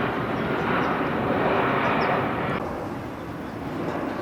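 Steady rushing engine and wind noise of an aircraft in flight, with no distinct rhythm. Its hiss drops suddenly about two and a half seconds in.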